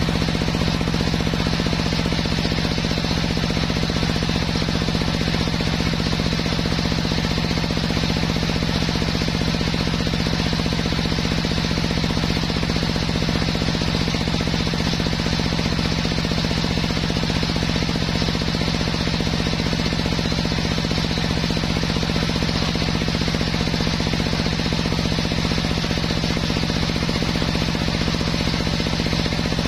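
Homemade table circular saw running with no wood in the blade: a steady, unchanging machine hum.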